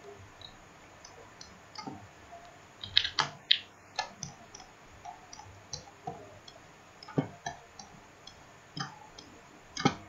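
Irregular sharp clicks of a computer mouse and keyboard being operated, a few at a time, loudest about three seconds in and again near the end.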